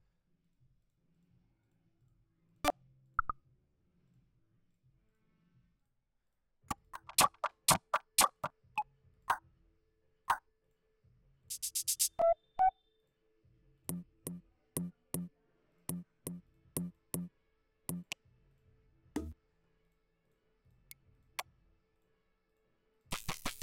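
Drum and synth sample previews auditioned one after another from the Elastik 3 sample player: scattered short percussive hits and brief snippets, then a run of evenly spaced beats about two to three a second in the middle. A dense synth loop starts loud near the end.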